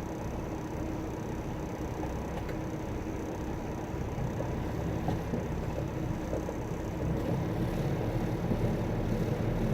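Semi truck's diesel engine running low and steady, given a little more throttle about seven seconds in to make the tractor creep backwards against the trailer while its brakes are set, sliding the tandem axles.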